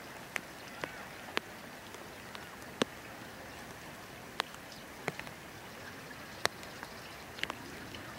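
Light rain falling: a steady soft hiss with scattered sharp ticks of single drops hitting close by, about one or two a second at irregular intervals.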